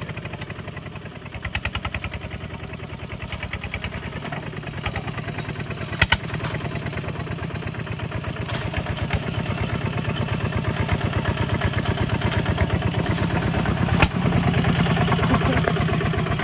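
Single-cylinder diesel engine of a two-wheel walking tractor chugging steadily under load, growing louder toward the end. Two sharp clanks come through, about six seconds in and near the end.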